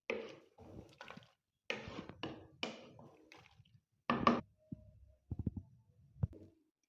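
Kitchen utensils knocking and scraping: a string of short clatters and scrapes, with a sharp knock a little after four seconds in and a few lighter taps near the end.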